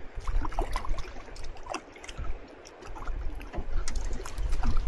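River water lapping and splashing against a small rowed boat's hull in a patter of small irregular ticks, with wind rumbling on the microphone.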